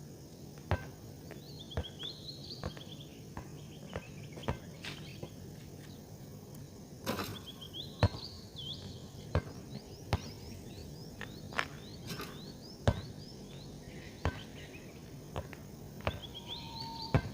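A songbird singing short, quick warbled phrases in several bouts, over sharp clicks that come irregularly about once or twice a second.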